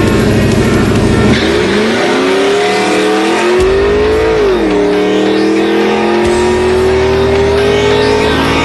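A V8 performance car accelerating hard at full throttle, its engine note climbing steadily through a gear, dropping sharply at an upshift about four and a half seconds in, then climbing again through the next gear.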